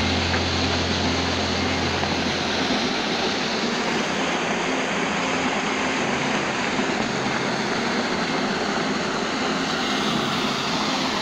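Water gushing from a concrete dam outlet and crashing into the churning channel below: a loud, steady rush. A low rumble underneath fades out about two and a half seconds in.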